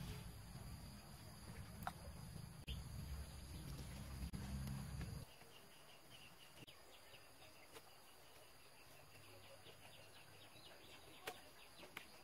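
Faint outdoor ambience: a low rumble that cuts off abruptly about five seconds in, then a quiet background of fast, faint chirping or ticking with a few soft clicks.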